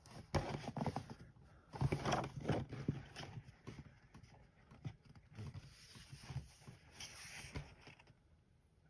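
Pages of a coloring book being turned and handled: a series of paper rustles and light taps that die away shortly before the end.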